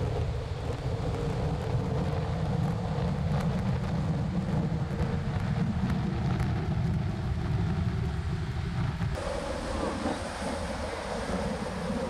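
Wind buffeting the microphone over the wash of breaking surf. About nine seconds in the sound changes abruptly: the low rumble drops away and the hiss of the waves comes forward.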